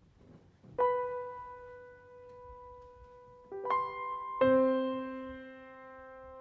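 Slow, sustained keyboard notes with an electric-piano sound: a single note about a second in, then a few more notes entering around the middle to form a held chord that rings on.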